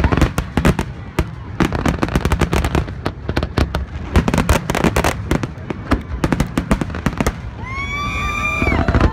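Aerial fireworks shells bursting in rapid succession: a dense run of bangs and crackles, several a second. About eight seconds in, a high drawn-out tone rises over them and holds for about a second.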